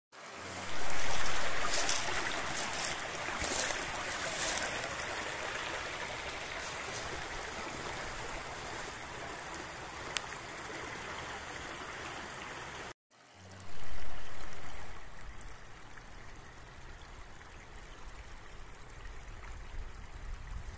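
Small shallow stream trickling over stones and mud, a steady watery hiss. It swells loud in the first seconds, breaks off abruptly about two-thirds of the way through, and starts again a moment later, loud at first and then settling.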